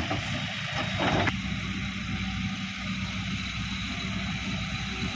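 Diesel engines of a Mahindra tractor and a Case 770 backhoe loader running steadily, with a short louder burst of noise about a second in.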